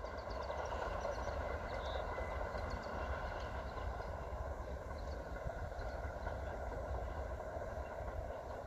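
Wind buffeting the microphone over a steady even hiss, with small birds chirping in the first few seconds.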